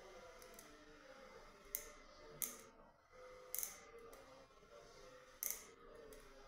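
Orthodontic pliers snapping braces off the teeth: four sharp clicks, each a second or two apart.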